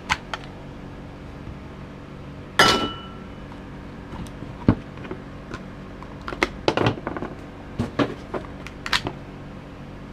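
Plastic casing of an AEG 18 V Lithium Pro 3 Ah battery pack being pulled apart and handled by hand: scattered clicks, knocks and rattles as the top and sides come off and the cell block is lifted out. About two and a half seconds in comes one loud clack that rings briefly.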